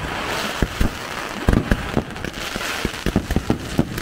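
Fireworks show: aerial shells bursting in a rapid, irregular run of bangs, over a continuous crackling hiss from the burning stars.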